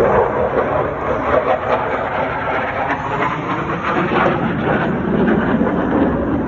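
F-16 fighter jet's single turbofan engine, a loud steady rushing noise that swells and eases slightly, its sound shifting lower about five seconds in.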